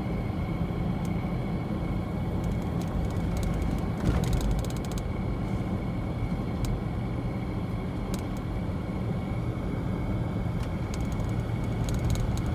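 Toyota 4Runner driving: steady engine and road noise, with a brief louder bump about four seconds in.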